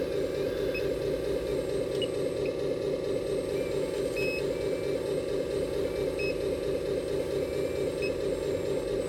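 Hydraulic pump of an RC excavator running steadily with a fast, even pulsing hum as the boom and bucket dig sand. A few short, high beeps come in scattered across it.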